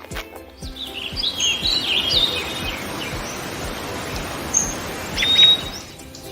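Small birds chirping, with many short high notes that mostly fall in pitch, over a steady hiss of outdoor noise. The hiss and chirping stop about six seconds in.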